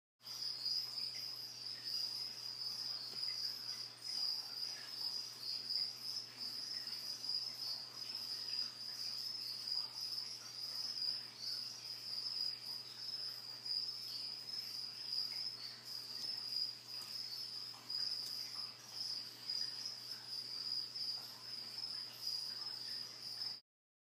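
Crickets chirping in a continuous high, even trill, with a faint low hum beneath. Both cut off abruptly near the end.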